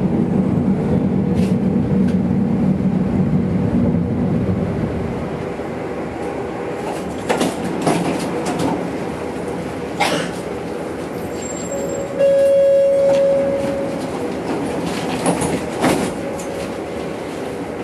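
A tram running along street track: its steady running hum fades after about four seconds as it slows, with a few sharp clicks from the running gear. About twelve seconds in a loud, steady, pitched tone sounds for about a second and a half.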